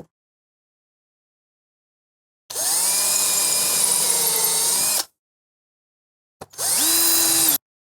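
Power drill running in two bursts: a steady whine of about two and a half seconds, then a shorter one about a second later that spins up before holding steady.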